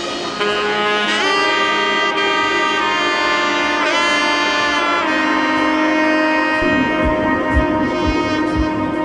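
Background instrumental music: a melody of long held notes with pitch slides, over a low sustained accompaniment.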